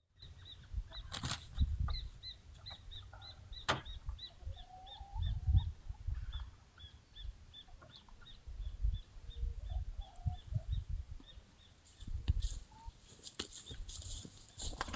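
A bird repeating a short, high chirp two or three times a second for about nine seconds, with a few lower calls among them. Uneven low rumbles and thumps of wind or handling on the microphone run underneath.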